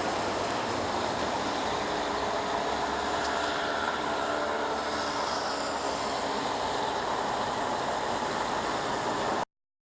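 Steady noise of traffic or another vehicle, an even rumble and hiss with no breaks, recorded on a mobile phone; it cuts off abruptly near the end.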